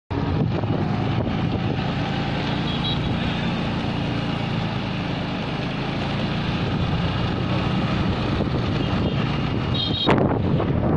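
Motor scooter running along a road, its engine hum mixed with wind and traffic noise. Short high beeps come twice, about three seconds in and just before a sharp knock near the end.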